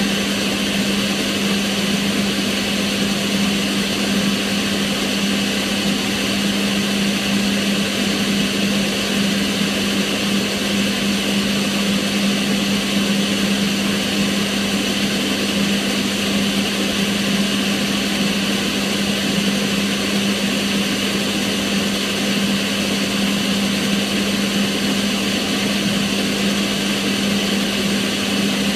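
Kitchen range hood extractor fan running steadily: an even rush of air over a constant low hum.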